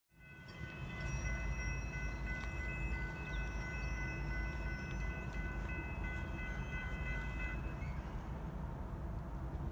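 Norfolk Southern diesel locomotives working hard to haul a heavy oil train up a steep grade, heard as a steady low rumble, with a multi-chime air horn chord held for about seven seconds and stopping near the end.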